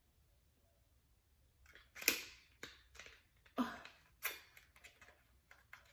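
A few faint, sharp clicks and rustles of a small cardboard packaging box and a lip gloss tube being handled. They start about two seconds in, after a near-quiet opening.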